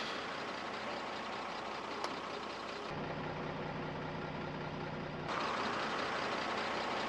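Vintage Mercedes expedition truck's engine and road noise heard from the cab, a steady running sound that changes character twice where the shots are cut together, with a low steady hum between about three and five seconds in.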